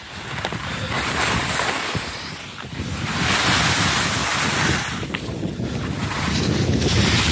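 Wind buffeting the microphone with the hiss and scrape of skiing over packed snow, louder and brighter from about three seconds in.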